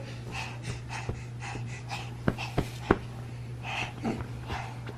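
Baby's quick, excited breathing: short breathy puffs about three a second, with three sharp taps a little past halfway.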